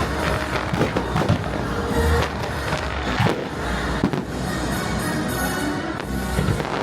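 Fireworks bursting and crackling, many bangs in quick succession, over loud show music.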